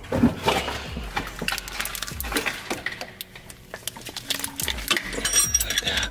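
Metal hand wrenches clinking and scraping against each other and against engine-bay hardware while being fitted onto a bolt, as a string of irregular light clicks and taps.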